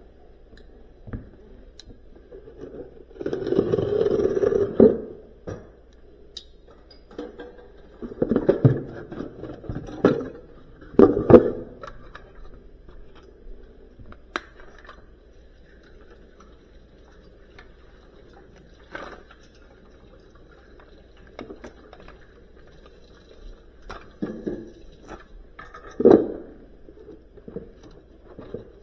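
Scattered knocks, clunks and scrapes of hands and tools working on a built-in freezer's drawer and parts, with a longer scraping rustle a few seconds in and a run of sharper knocks around ten seconds in.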